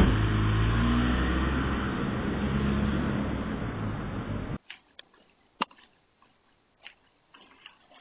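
A car pulling away and accelerating, its engine loud at first and slowly fading before it cuts off suddenly after about four and a half seconds; then only a few faint clicks and taps.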